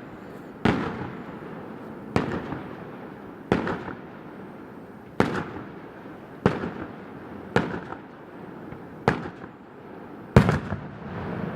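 Fireworks display: about eight sharp booms, roughly one every second and a half, each fading out in an echo. The loudest comes near the end.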